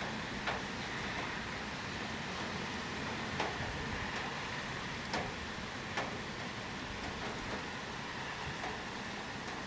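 Steady rain falling, an even hiss with a few sharp drip-like taps now and then.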